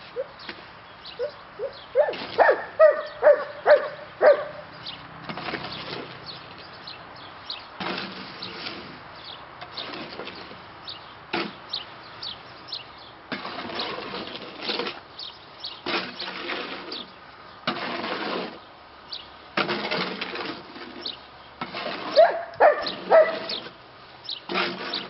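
Shovel scraping and turning concrete mix in a metal wheelbarrow, in repeated uneven strokes. A dog barks in short runs about two seconds in and again near the end.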